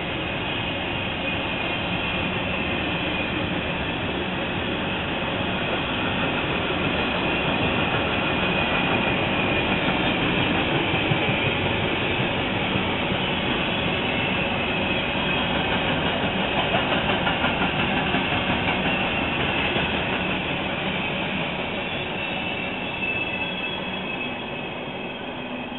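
Freight train of double-stack container well cars rolling past: a steady rumble and clatter of steel wheels on rail, with a thin high wheel squeal. It grows louder through the middle and fades over the last few seconds.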